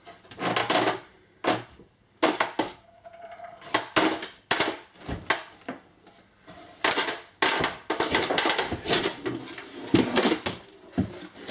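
Wooden shelves and boards of a corner shelf unit knocking, banging and scraping as they are pulled loose and lifted down by hand: an irregular run of knocks and clatters.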